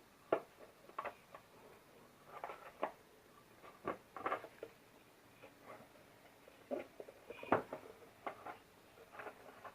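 Light handling noise: about a dozen soft, irregular taps and clicks, as a phone and a Bluetooth speaker are handled while the two are being paired.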